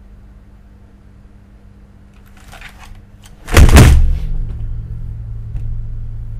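A sudden loud, deep boom about three and a half seconds in, sliding down in pitch, that settles into a steady low rumbling drone; before it only a faint steady hum.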